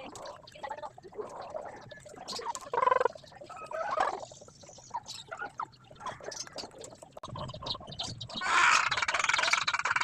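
Chickens calling and clucking in short bursts, with a louder, longer call beginning near the end.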